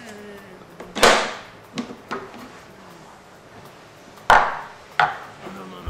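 Sharp knocks and clunks as the Thermomix lid is unlocked and lifted off and the steel mixing bowl is handled. There is a loud knock about a second in and another near the end, with a few lighter knocks between.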